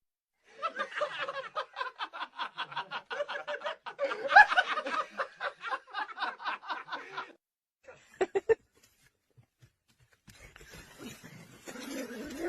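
Rapid laughter-like snickering, short pitched pulses about five a second in two runs, followed by a few quick sharp sounds.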